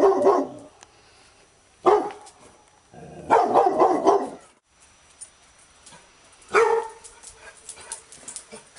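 Labrador retriever barking in separate bursts: a bark at the start, another about two seconds in, a quick run of several barks in the middle, and one more near the end.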